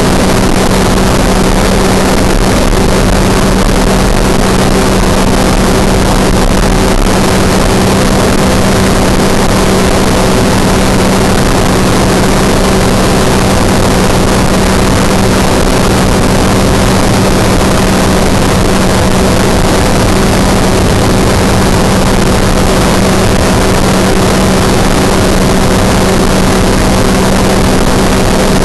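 Ultralight trike's engine and propeller droning steadily at constant cruise power, under a loud, even hiss of air.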